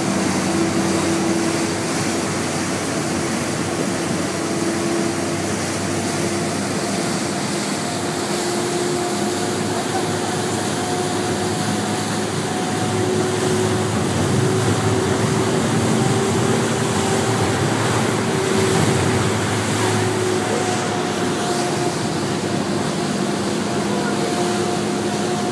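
Staten Island Ferry under way: a steady machinery drone with a hum that wavers slightly in pitch, over a constant rush of water and wind.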